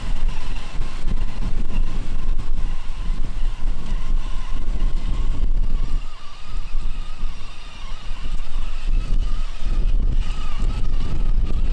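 Traxxas TRX-4 RC crawler truck's sensored brushless motor and drivetrain whining steadily as it crawls through mud and grass, over a strong low rumble.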